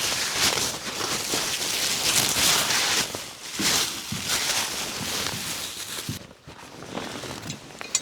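Rustling, crackling handling noise that drops away about six seconds in.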